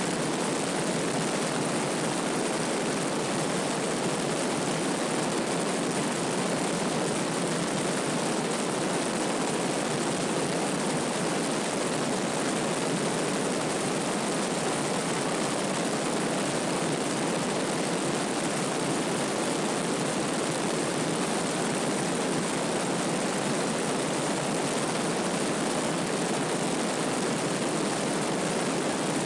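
Steady noise of a Piper PA-32 single-engine propeller plane in its climb after takeoff: engine and propeller drone mixed with rushing air, heard from a camera mounted outside under the wing.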